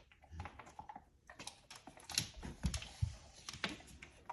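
A dog's scattered light clicks and taps, irregular and a few with a soft thud, as it moves and mouths at a dropped pill.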